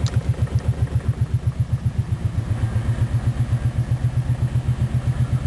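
2007 Kawasaki Brute Force 750 ATV's V-twin engine idling steadily at about ten low pulses a second, with a clicking at idle that the owner suspects comes from the valves or tappets.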